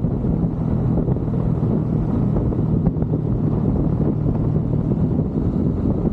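Motorcycle engine running at a steady cruising speed, its low hum mixed with wind buffeting the camera microphone.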